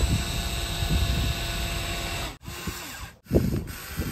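Electric motors of a Huina RC toy excavator whining steadily with crackling and clatter underneath, breaking off about two seconds in; after that only crackling and clatter.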